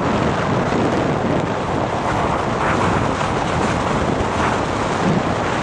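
Strong wind buffeting the microphone over choppy, whitecapped sea, with waves washing against the pier pilings beneath it.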